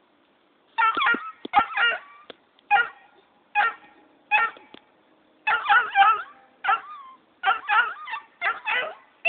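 Black and tan coonhound puppy barking in a string of short, pitched barks, some in quick clusters, starting about a second in. It is barking at its owner as he leaves.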